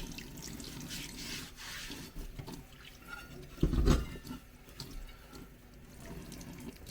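Water running and dripping in a kitchen sink as a steel car part fresh from a rust-remover bath is rinsed off, with a single knock about four seconds in.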